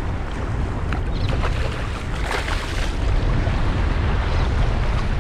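Strong wind buffeting the microphone over small waves washing on a shallow shore, with a brief louder rush of splashing water about two seconds in.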